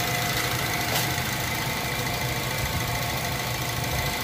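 A Mazda's four-cylinder petrol engine idling steadily with the bonnet open, warm after about five minutes of running on fresh oil, with a faint click about a second in.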